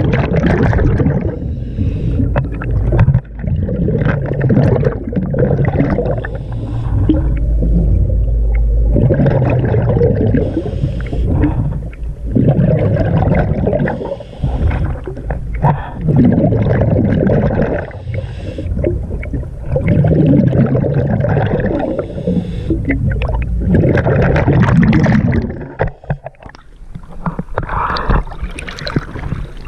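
Scuba diver's breathing heard underwater through the regulator: repeated gurgling rushes of exhaled bubbles every few seconds, with low water rumble between them.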